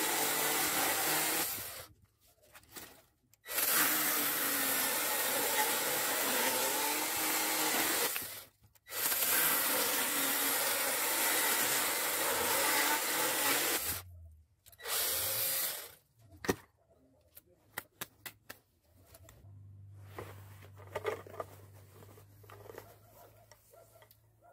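Worx WG324E 20 V cordless pruning chainsaw cutting through a log, its motor and chain running in three long stretches and one short one with brief stops in between. After the last cut there are a few sharp clicks, then a faint low hum.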